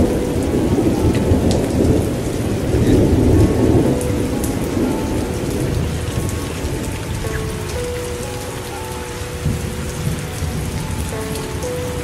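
Heavy rain falling steadily, with a long rumble of thunder through the first few seconds that gradually dies away.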